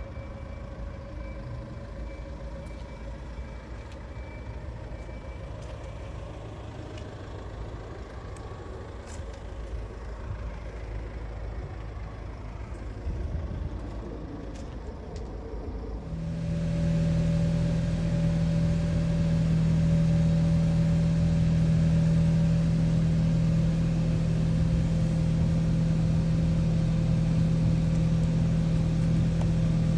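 Hyundai i20N's 1.6-litre turbocharged four-cylinder engine idling steadily. About halfway through, the sound steps up suddenly to a louder, steady low drone and stays there.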